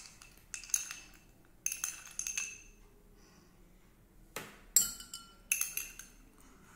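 Ice cubes being spooned from a glass bowl into a glass of lemonade: about half a dozen sharp glassy clinks of metal spoon, ice and glass, each ringing briefly, with a quiet pause in the middle.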